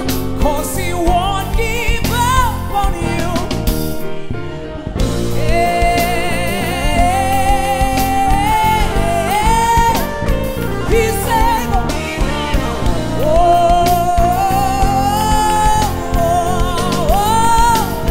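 Male solo singer performing a gospel song with live band accompaniment, holding long notes with a wide vibrato; the music dips briefly about four seconds in.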